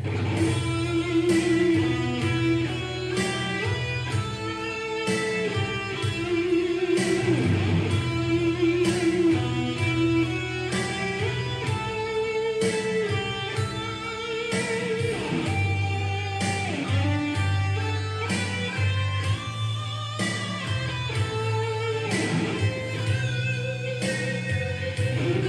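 Godin Redline HB electric guitar played through an amplifier, lead lines with bent notes over a steady beat and low sustained notes.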